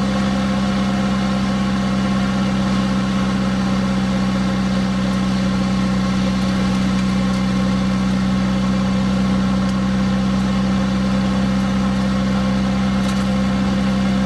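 Nissan D21 pickup's SR20DET turbo four-cylinder engine idling steadily with an even drone.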